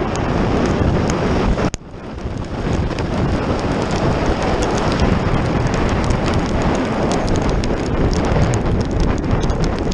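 Wind rushing over the microphone of a bicycle-mounted camera on a fast downhill, mixed with tyres hissing on a rain-wet road. The noise drops out briefly just under two seconds in, then runs on.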